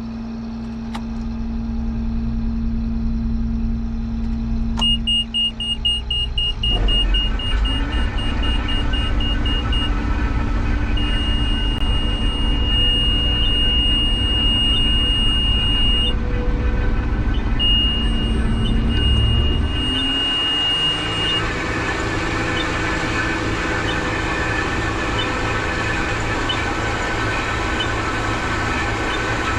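New Holland TR89 combine harvester running, its sound swelling about a quarter of the way in and shifting again about two-thirds through as the machinery comes up to work. A high warning beeper sounds from a few seconds in, rapid beeps first and then a long held tone that cuts in and out.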